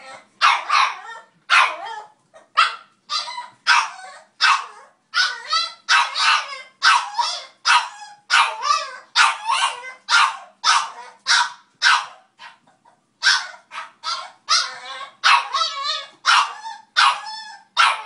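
Small puppy barking over and over, short high yaps about two a second.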